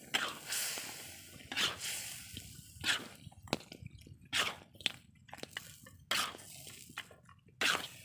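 Metal spatula stirring pieces of meat in a wet stew in an aluminium wok, with irregular scrapes and wet squelches, about one every second.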